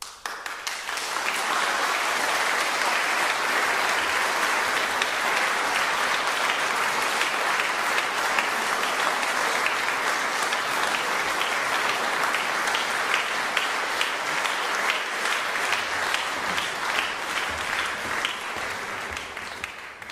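Audience applause breaks out all at once and runs on steadily. In the second half, single claps stand out more as it begins to thin, and it tails off at the very end.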